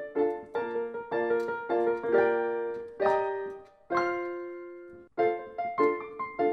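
Background piano music: a gentle melody of struck notes and chords, with one chord left ringing and fading for about a second near the middle before the notes start again.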